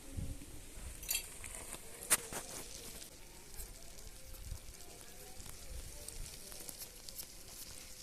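Faint sizzling and crackling of food cooking over an open fire, with a sharp click about two seconds in.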